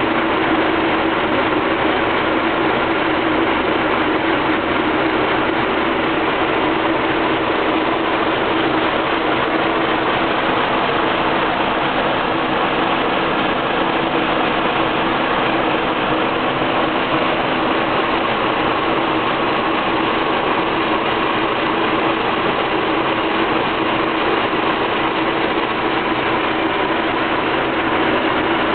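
Car engine idling steadily without change, with a dense mechanical clatter; this is the rough idle that the owner is checking with a vacuum gauge.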